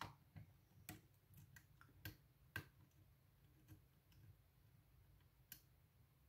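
Faint, irregular small clicks and ticks of a steel lock pick and tension wrench working the pins of a pin-tumbler lock cylinder clamped in a vise, with two louder clicks about two seconds in and another near the end.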